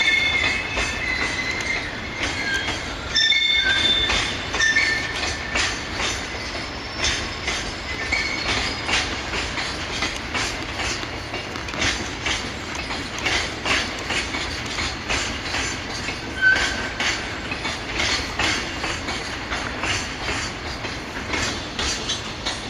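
Freight train wagons rolling past, wheels clacking regularly over rail joints. High wheel squeal sounds during the first few seconds and once more briefly later on.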